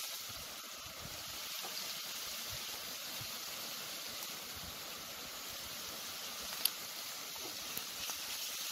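Paneer cubes sizzling in hot oil in a kadhai, a steady hiss, with a single sharp click about two-thirds of the way through.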